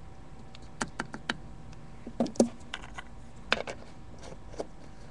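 Scattered light clicks and taps of kitchen utensils and containers being handled: three quick clicks about a second in, a louder knock about two and a half seconds in, and a few more after.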